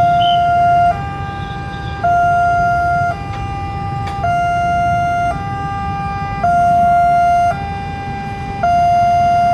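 Automatic electronic level-crossing warning siren sounding a two-tone hi-lo signal, switching between a lower and a slightly higher tone about once a second; it warns that a train is approaching the crossing. A low steady rumble runs underneath.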